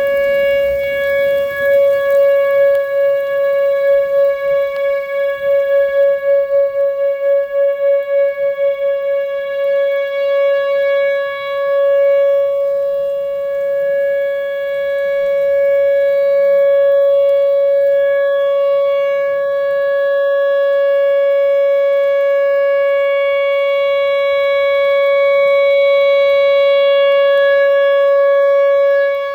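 Outdoor tornado warning siren sounding a steady tone at one pitch, its loudness pulsing rapidly for the first several seconds and then swelling and fading slowly.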